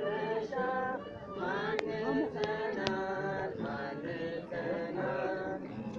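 Singing voice holding long notes that slide from one pitch to the next, with three sharp clicks about two to three seconds in.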